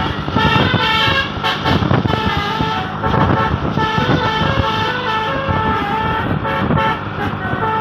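Telolet bus horn playing a rapid tune of short notes that jump between pitches, over a steady low rumble.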